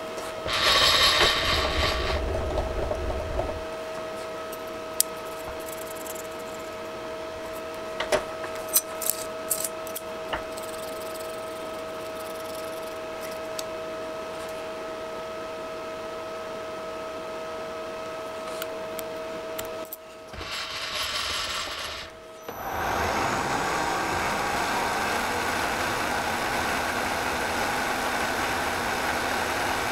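Milling machine running while a dovetail cutter mills a slot along the back of a brass printing plate: a steady whine with a few light clicks and two short noisy bursts, then from about two-thirds through a louder, even whirring noise.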